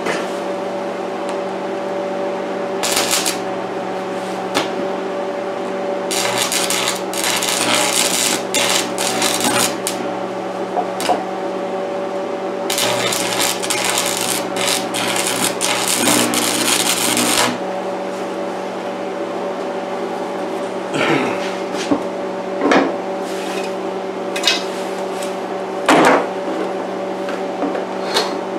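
Arc welding on steel: three spells of crackling arc, a short one about three seconds in, then two of about four and five seconds, over a steady electrical hum. A few sharp knocks near the end.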